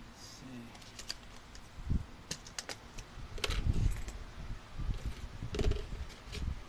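Small metal hardware, a butterfly drywall toggle anchor and its screw, being picked up and handled on a cardboard-covered surface: scattered light clicks and clinks with a few soft thuds.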